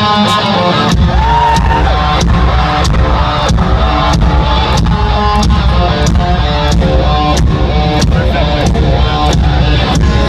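Live alternative-metal band playing loud: distorted electric guitars, bass and drum kit. The full band crashes in about a second in with a heavy low end and a steady beat of about two hits a second.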